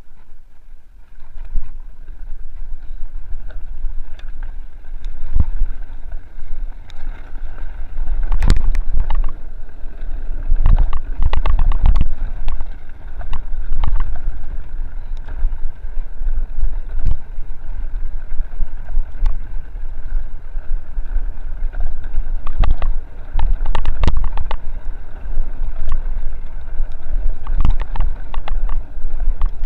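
Mountain bike descending a rough dirt trail, heard from a camera on the bike: wind rumble on the microphone with frequent rattles and knocks as the bike goes over bumps and rocks, getting busier about a quarter of the way in.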